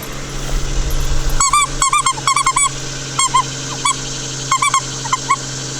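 A dog whining in short, high squeaks that come in quick runs of two to four, over a steady low hum.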